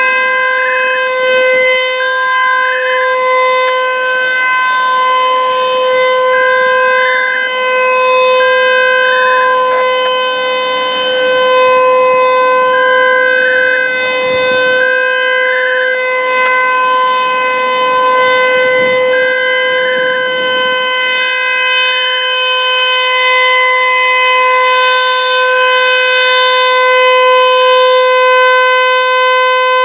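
ASC T-135 outdoor warning siren sounding its full alert signal: a very loud, steady tone that holds its pitch without rising or falling.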